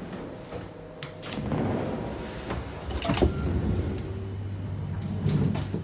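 Interior sliding doors of a EuroCity passenger coach opening as someone passes through, with sharp clicks and knocks about one and three seconds in. A steady low hum sets in about two-thirds of the way through.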